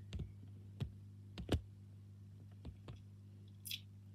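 Quiet, scattered clicks and taps, about six in all, over a steady low hum, with a brief hiss near the end.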